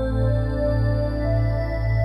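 Improvised ambient music on Korg M1 and Roland D50 synthesizers: held pad chords over a deep bass that swells about twice a second, with a higher note coming in about a second in.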